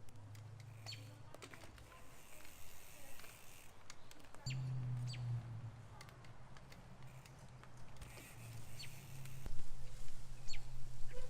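Short, high, downward-sliding bird chirps, a few seconds apart, over faint outdoor background. A rougher low rumble grows louder near the end.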